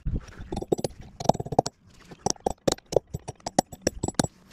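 Irregular metallic clicks and taps, a dozen or more short sharp strikes, from hand tools working at the steel pin in the hub of a CAT 287C track loader's rear axle to free it.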